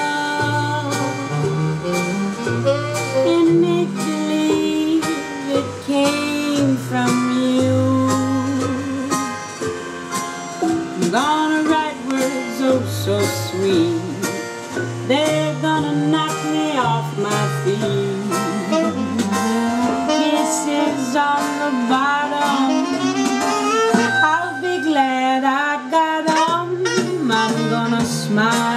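Swing-jazz recording playing an instrumental passage: a bass line stepping from note to note under a gliding lead melody.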